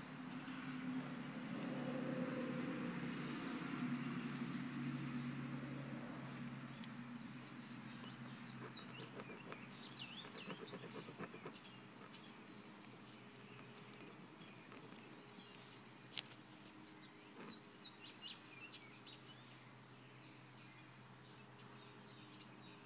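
Faint, short high chirps like a small bird calling, over a low steady hum; a louder rushing noise fades out over the first several seconds.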